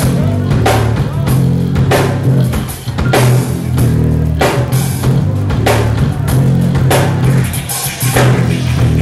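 Live band playing a groove on drum kit and bass guitar, with heavy, prominent bass notes under regular drum hits about twice a second.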